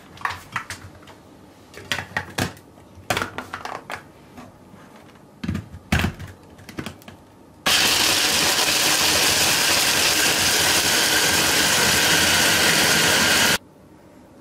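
Hand blender's chopper attachment grinding warm oven-roasted hazelnuts, a loud steady whir that runs about six seconds and cuts off abruptly. Before it come a run of plastic clicks and knocks as the blender's motor unit is fitted onto the chopper bowl.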